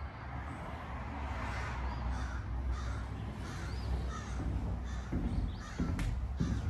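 Crows cawing in a run of short, harsh, repeated calls over a low steady rumble, with a few sharp knocks near the end.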